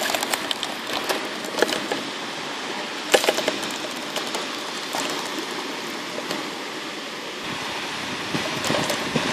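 Scattered clicks and taps against a clear plastic jar over a steady background hiss. There is a cluster of clicks in the first second and a half, a sharper one about three seconds in, and a few more later.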